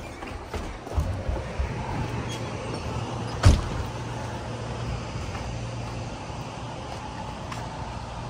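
A door on an overhead closer swings shut with one sharp bang about three and a half seconds in, after a few lighter thumps, over a steady low hum.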